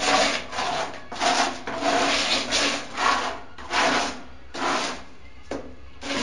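Steel trowel scraping tile mortar around the inside of a bucket, about ten short rasping strokes, roughly two a second.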